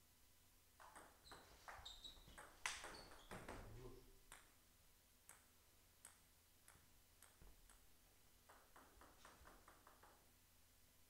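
Celluloid-type table tennis ball clicking off bats and the table in a short rally, the sharpest hit about two and a half seconds in. Then the ball bounces on the floor in a run of clicks that come quicker and quicker as it dies away. Near the end comes a quick series of light clicks as the ball is bounced on the table before the next serve.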